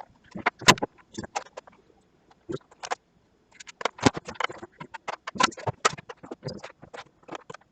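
Irregular clicks and knocks from handling a screwdriver and a projector's casing, with two short pauses.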